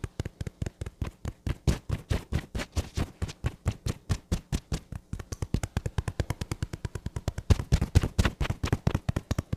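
Fingertips tapping rapidly on the face and jaw in a percussion (tapotement) self-massage: an even run of light taps, about eight a second, a little louder about three quarters of the way through.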